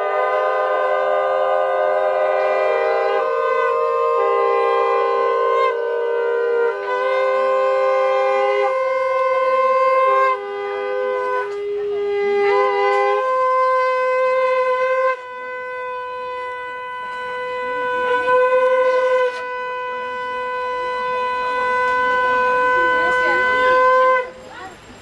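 Several conch shells blown together in long, steady, overlapping notes at slightly different pitches. They thin out until one conch carries on alone with breaks for breath, and it stops sharply near the end.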